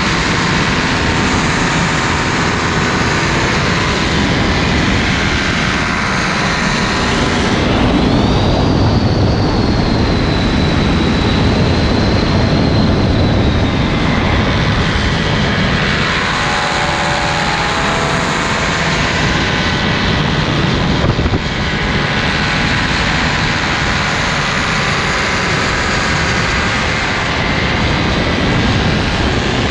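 Propeller engine running in flight, loud and steady, mixed with rushing air. A high whine rises about eight seconds in and holds for several seconds before fading.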